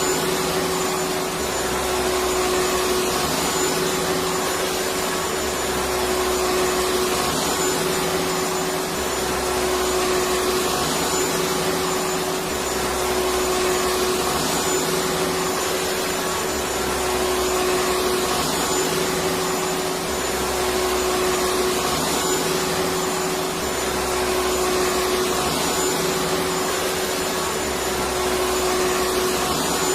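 Electric vacuum cleaner running continuously: a steady rushing motor noise with a constant whine, and a faint low pulse repeating about every two seconds.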